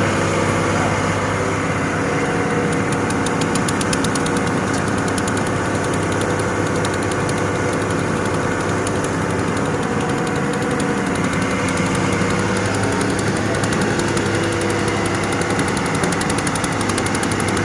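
Heavy diesel machinery engine running steadily at a constant pace.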